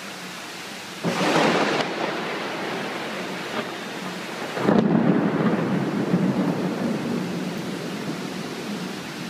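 Heavy tropical downpour hissing steadily, with a sudden crack of thunder about a second in and a second, longer peal of thunder about halfway through that slowly rumbles away.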